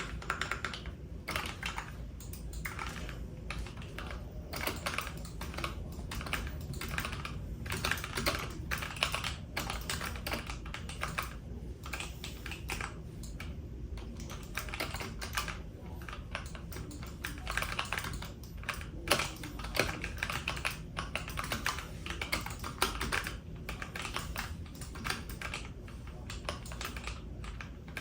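Typing on a computer keyboard: rapid runs of key clicks with short pauses between them, over a steady low hum.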